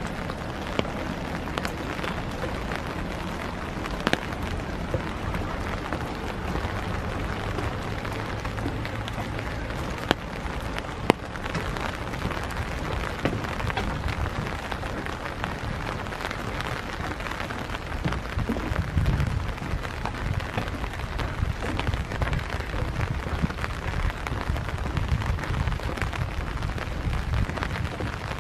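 Steady hiss of rain falling, with a few sharp ticks of drops in the first half and low bumps in the second half.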